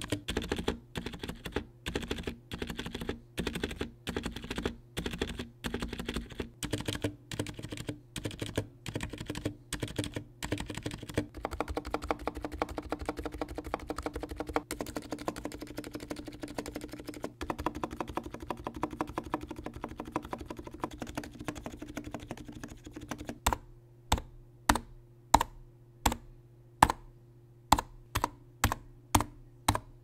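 Typing on a Niz Plum Atom 66 electro-capacitive keyboard, its rubber-dome switches fitted with extra springs on the alpha keys. Quick, steady keystrokes run for most of the stretch. Near the end they give way to separate, louder single key presses at just under two a second.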